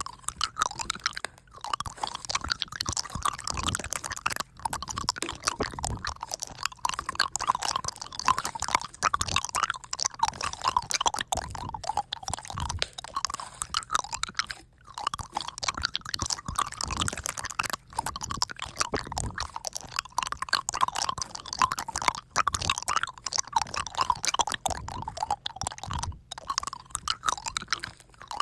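Close-miked mouth sounds like chewing: a dense, continuous crackle of small wet clicks.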